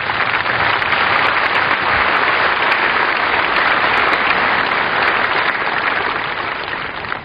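Large crowd applauding, swelling up over the first second and easing off toward the end.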